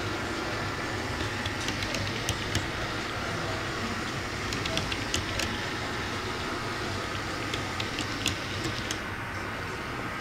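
Model double-stack container train rolling past, its wheels on the track making a steady rumble with scattered sharp clicks.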